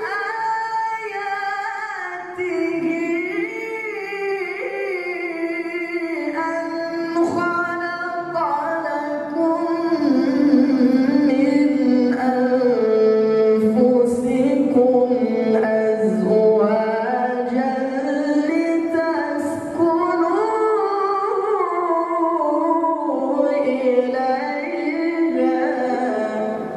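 A solo male voice chanting Quran recitation in Arabic: long melismatic phrases of held notes that slide slowly up and down, with only brief pauses for breath.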